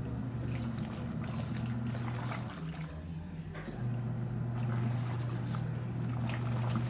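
Seagull washing machine running a wash of towels: a steady motor hum with water sloshing. The hum drops out for about a second near the middle, then starts again.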